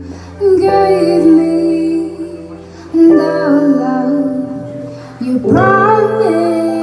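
A song: a voice sings drawn-out phrases over plucked guitar and a steady low accompaniment. New phrases begin about half a second, three seconds and five and a half seconds in.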